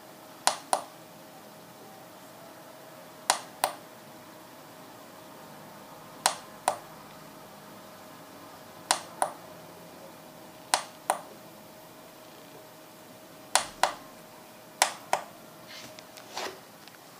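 Sharp clicks in pairs, about a third of a second apart, repeated seven times every two to three seconds, as of a small switch or button being pressed and released. A faint steady tone hums underneath.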